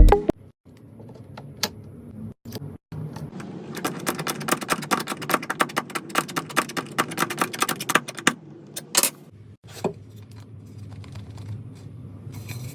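Hand tool work on wood: a long run of quick, light clicks and taps, densest in the middle, over a low hum.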